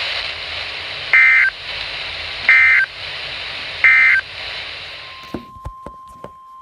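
Emergency Alert System end-of-message signal: three short, loud, buzzy digital data bursts about 1.4 s apart, sent over NOAA weather radio at the close of a warning. They play over radio static that cuts off suddenly about five seconds in, followed by a few faint clicks.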